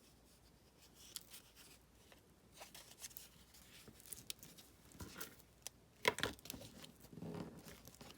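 Paper and card being handled and folded at a craft table: faint rustling and crinkling with scattered small clicks and taps, busier about six seconds in.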